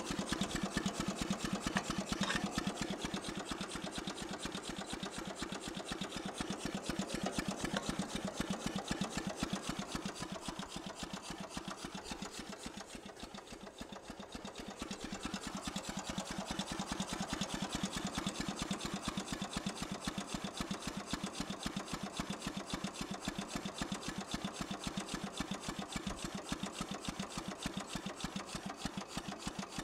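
12 hp Briggs and Stratton engine converted to run on steam, running steadily with a fast, even beat of exhaust chuffs. It dips slightly in level around the middle.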